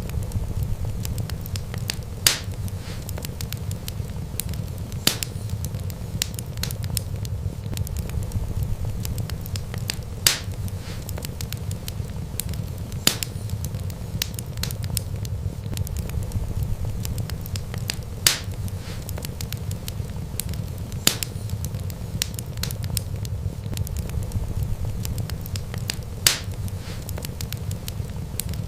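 Wood fire crackling: a steady low rush of flames with sharp, loud pops every few seconds.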